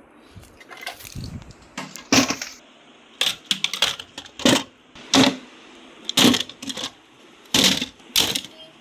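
Toys being put one after another into a drawer: a string of separate hard knocks and clatters, about one a second and unevenly spaced.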